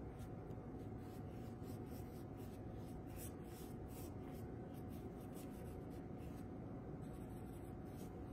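Faint, irregular scratchy strokes of a paintbrush dabbing and spreading paint across a canvas, over a steady room hum.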